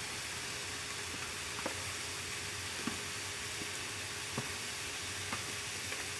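Rice with carrots and peas sizzling as it is poured onto a hot, oiled Blackstone flat-top griddle: a steady hiss with a few faint ticks.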